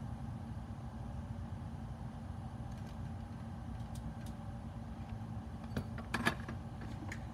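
A steady low hum runs under everything. A few light clicks and taps from small tools and parts being handled on the bench come about four seconds in and again around six to seven seconds, the loudest about six seconds in.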